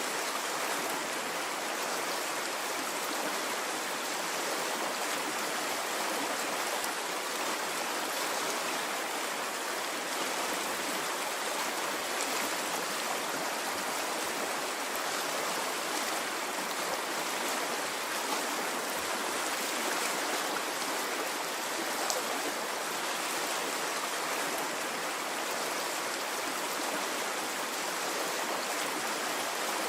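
Water in a stream flowing and babbling at a steady level, with no rise and fall of waves.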